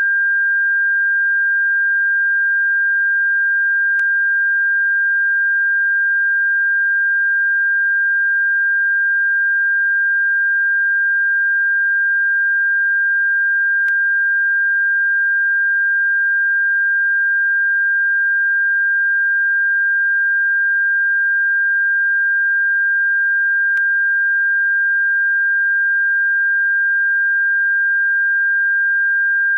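A single steady, unchanging high electronic pure tone, played as a bird-repellent frequency. Three faint clicks come about ten seconds apart.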